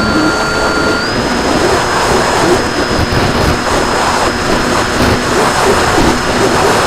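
RC plane's motor and propeller whining steadily under heavy wind rush, the whine stepping up slightly in pitch about a second in as the throttle rises.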